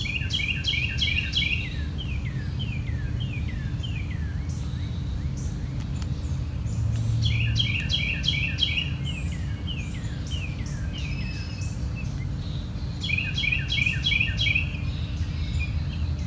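A songbird singing the same song three times, each a quick run of downward-slurred chirps that slows toward its end, over a steady low background rumble.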